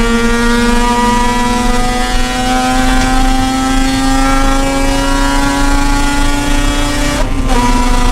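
Mazda RX-8's two-rotor Wankel rotary engine pulling hard under acceleration, its note rising steadily. About seven seconds in there is a quick upshift: the note cuts briefly, drops in pitch and starts climbing again.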